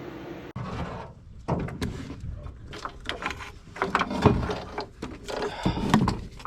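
Irregular clanks, clicks and knocks of hand tools and metal parts being handled during work on a car, after a steady hum that cuts off abruptly about half a second in.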